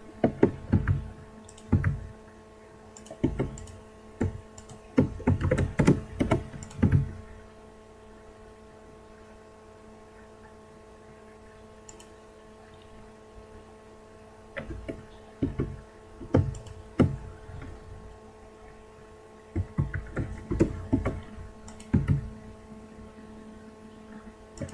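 Computer keyboard keys and mouse buttons clicking while shortcuts are entered in 3D software. There is a cluster of clicks in the first seven seconds or so, a pause of several seconds, then two more groups of clicks near the end, over a steady electrical hum.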